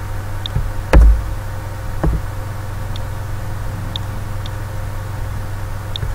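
Steady electrical hum of the recording setup, broken by two sharp knocks about one and two seconds in, the first the louder. Faint high ticks come now and then, about a second apart.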